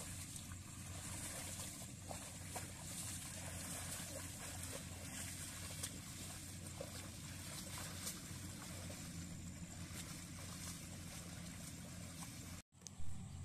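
Small engine of a walk-behind rice reaper running steadily, a low even hum, with trickling and splashing of mud and water as a water buffalo hauls a cart through the flooded paddy. The sound breaks off briefly near the end with a sharp click.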